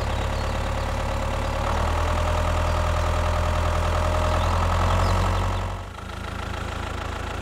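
Tractor engine running steadily, louder for a few seconds in the middle, then dropping back to a quieter idle about six seconds in.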